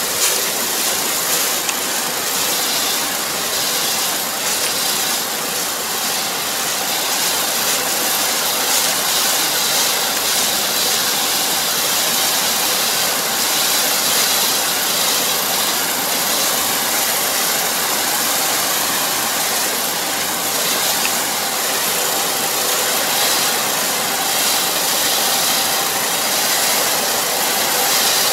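Rice combine harvester running steadily: an engine drone under a constant high hiss.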